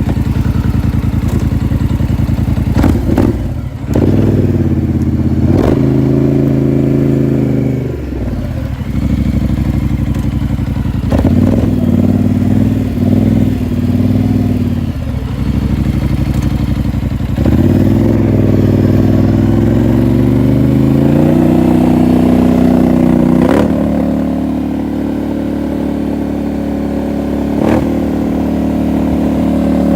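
Polaris Sportsman 850 ATV's parallel-twin engine running through a Big Gun slip-on exhaust while riding, its note rising and falling repeatedly as the throttle is opened and let off. A few sharp knocks sound along the way.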